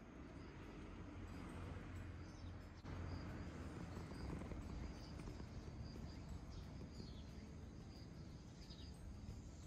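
Calico cat purring steadily, a low fluttering rumble, with faint insects chirping in the background.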